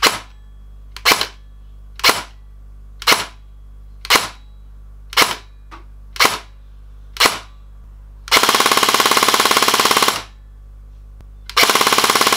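SA-B12 airsoft electric rifle with a heavily used JG Super High Power motor and 18:1 gears firing eight single semi-auto shots, about one a second. Then comes a full-auto burst of about two seconds at almost 18 BBs per second, and a second burst starts near the end.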